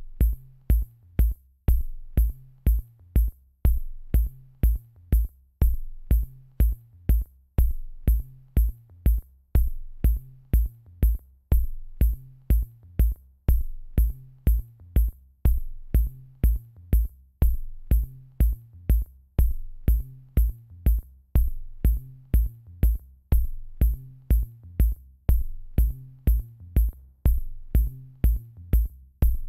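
Electronic background music with a steady drum-machine beat: deep kick drum, short hi-hat ticks and a repeating bass line.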